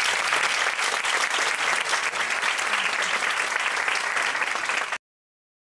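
Audience applauding: steady, dense clapping that cuts off suddenly near the end.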